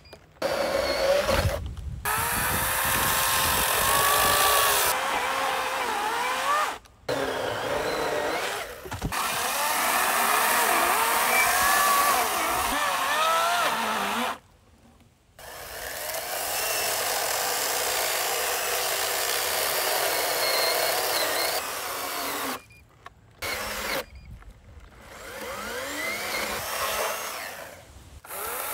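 40-volt battery chainsaws, a Greenworks and then a Wild Badger, cutting through logs. The electric motor and chain whine loudly, the pitch sagging and climbing again as the chain bites into the wood and frees, with several brief stops between bursts.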